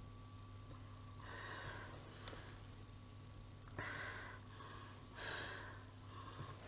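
Heavy breathing inside a rubber gas mask while smoking a cigarette fitted to its filter port: four breaths, each a rush of air through the mask, spaced a second or two apart.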